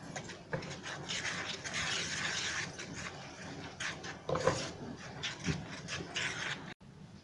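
Wooden spatula scraping and rubbing round a pan while stirring thickening caramel toffee: a continuous run of irregular scrapes that briefly cuts out near the end.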